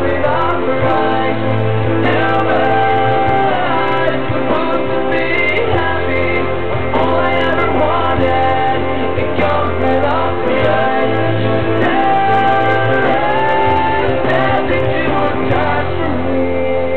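A girl singing a slow song over a recorded backing track, holding long notes and sliding between them.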